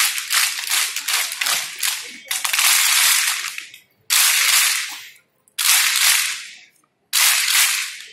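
A large group clapping in unison as a drill: a steady beat of about four claps a second, then a fast continuous patter of clapping, then three short bursts of rapid clapping with gaps between them.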